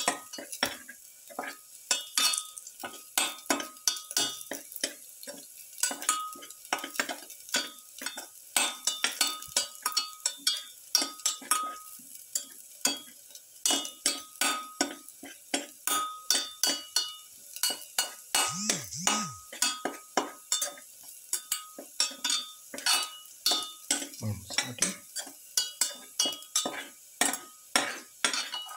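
Metal spatula stirring and scraping garlic cloves around a steel pan, with quick clinks of metal on metal, roughly two or three a second, each ringing briefly. A faint sizzle of the garlic frying in oil runs underneath.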